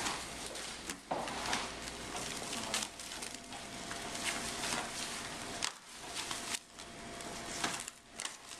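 Plastic wrapping and bubble wrap crinkling and rustling as they are pulled and worked loose by hand, with many small sharp crackles.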